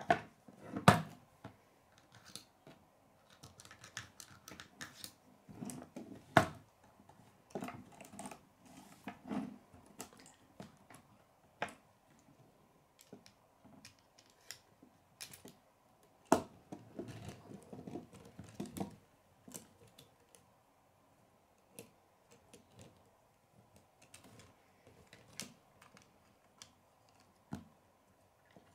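Hard plastic K'nex parts clicking and knocking irregularly as a wheel is fitted onto its axle and pieces are handled on a wooden table, with a few louder knocks scattered among the small clicks.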